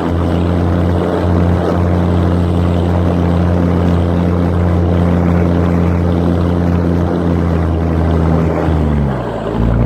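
Mercedes G-Class engine running at steady revs, then its pitch dips briefly and climbs back again near the end.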